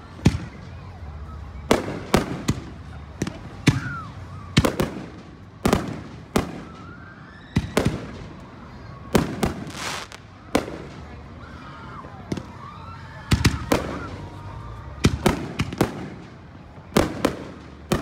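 Aerial fireworks shells bursting overhead: about twenty sharp booms in an irregular run, some in quick pairs and clusters, over a steady low rumble.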